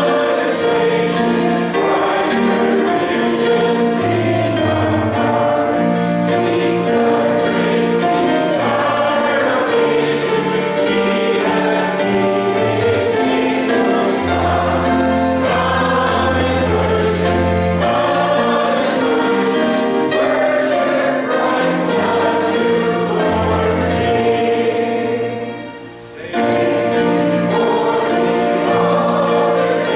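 Many voices singing a hymn together over instrumental accompaniment, in sustained notes with a moving bass line. The sound drops away briefly about four seconds before the end, between lines, then the singing resumes.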